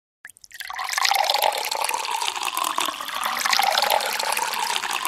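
Water running steadily from a tap, coming in abruptly after silence about a third of a second in and running at full flow from about a second on.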